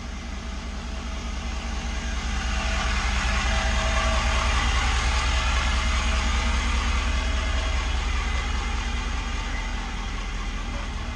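Ford F-350 Super Duty pickup's engine running as the truck and its trailer roll slowly past close by, growing louder towards the middle and easing off near the end.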